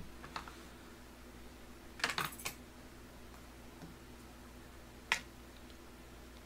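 Chopsticks stirring food in a hot pot and knocking against it: a quick rattle of clicks about two seconds in and a single sharp click about five seconds in, over a faint steady hum.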